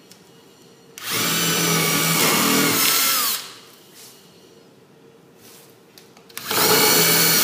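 Cordless drill running in two bursts of about two seconds, drilling a pilot and countersink hole into a wooden board with a countersink drill bit. The motor's pitch sags near the end of the first run, and the second run starts a little over six seconds in.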